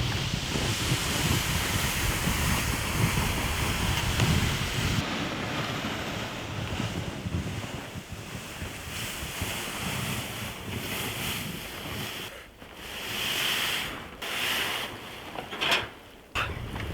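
Wind in a snowstorm, gusting with a steady rush and buffeting the microphone with a low rumble for the first few seconds. The noise breaks off abruptly a couple of times near the end.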